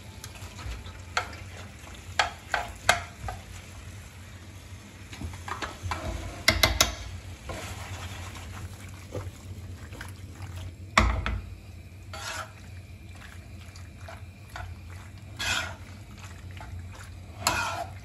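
Cooked penne tipped into a stone-coated frying pan of thick tomato sauce and stirred with a metal spoon: irregular scrapes and clinks of the spoon against the pan, with the loudest knocks about seven and eleven seconds in.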